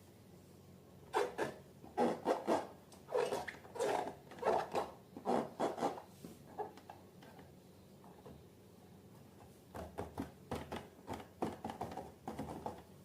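A series of short rubbing and scraping sounds from hands working balloons and slime, in two clusters with a pause in between.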